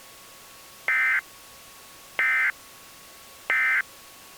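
Emergency Alert System end-of-message code: three short bursts of the two-tone digital data warble, about 1.3 seconds apart, marking the end of the alert message. A faint steady hum runs underneath.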